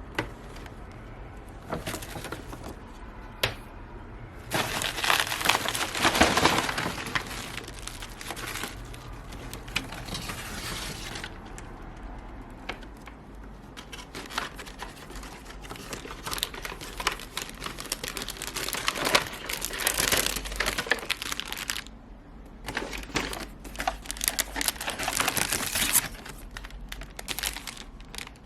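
Packaging being handled, crinkling and rustling, loudest in a long stretch from about 5 to 11 seconds in and again in shorter bouts later, with scattered light clicks and taps.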